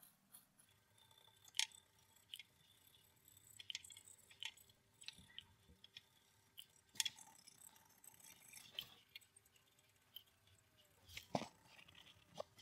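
Faint, scattered scraping and light ticking of a cotton-wool swab, wound on a split chopstick, being rubbed over a tube radio's metal chassis and coil parts to clean them. There are a few sharper clicks, the loudest near the end.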